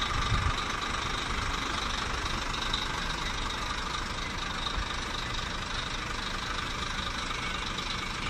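Scania K400 coach's rear-mounted diesel engine idling steadily.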